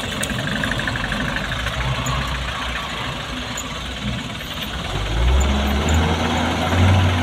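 Mitsubishi Colt Diesel dump truck's diesel engine running under load as the truck pulls out of soft soil and drives off. The engine note grows louder about five seconds in.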